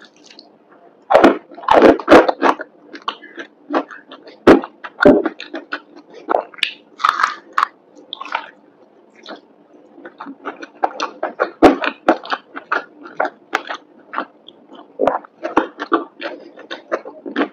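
Person biting and chewing crispy fried breaded chicken, heard as many short, irregular crunches and mouth sounds.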